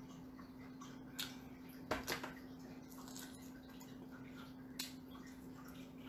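Quiet mouth sounds of eating a sticky, tender barbecue rib: a few soft wet clicks and smacks, a small cluster of them about two seconds in, over a steady low hum.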